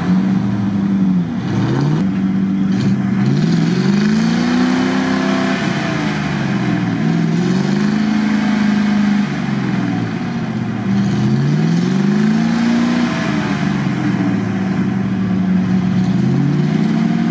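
GAZ-66 truck's engine revving up and down over and over as it churns through deep mud, its pitch climbing and dropping every few seconds.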